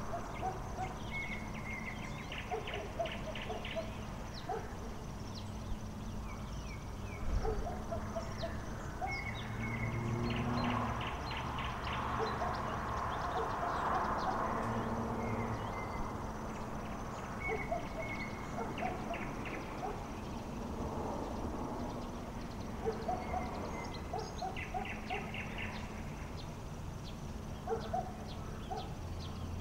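A bird singing at night, repeating a phrase every few seconds: a short held whistle followed by a fast rattling run of notes, with scattered shorter calls between. A rushing noise swells and fades in the middle, over a steady low hum.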